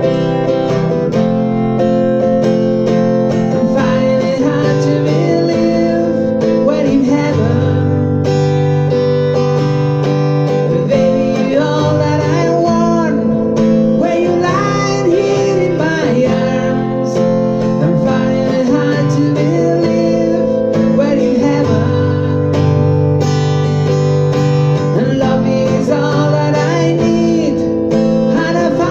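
A man singing while strumming chords on an acoustic guitar, a steady strummed accompaniment under his voice.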